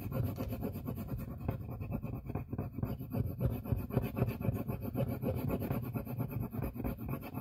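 Rub-on transfer being burnished onto paper by hand: rapid back-and-forth rubbing strokes, several a second, without a break.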